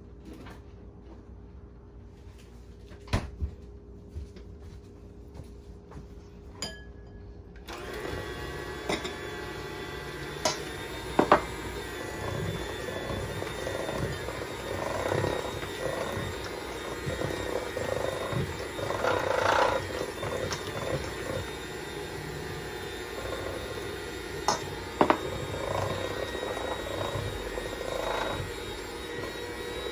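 Electric hand mixer beating waffle batter in a stainless steel bowl, its motor running with the beaters knocking and scraping against the bowl. It gets louder about a quarter of the way in.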